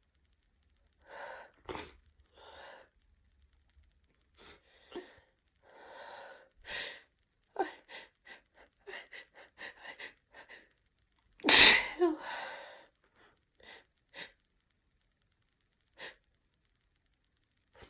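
A woman's sneeze build-up set off by chhinkni herbal sneezing powder in a congested nose. A few breaths come first, then a run of quick catching breaths, then one loud sneeze about two-thirds of the way in, followed by a few short breaths.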